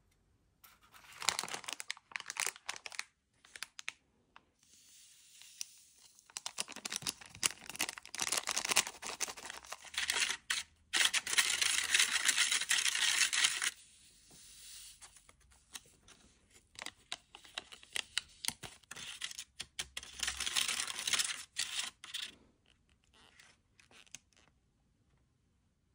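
Hands working a plastic DIY candy kit: paper-and-plastic powder packets torn and crinkled, a plastic spoon stirring and scraping in a thin plastic tray, with scattered clicks and taps of plastic parts. The noise comes in separate stretches with short quiet gaps, the longest and loudest about halfway through.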